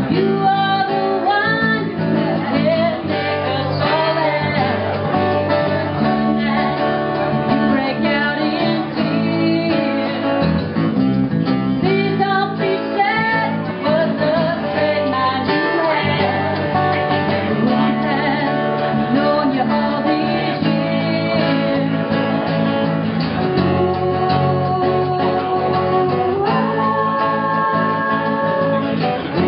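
A small live band playing: acoustic guitar strummed and picked, with singing over it in a country-folk style.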